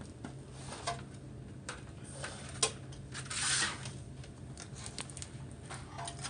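Scattered light clicks and taps from handling the opened monitor's plastic panel and cables, with one sharp click about halfway through and a short scraping rustle just after it. A faint steady hum runs underneath.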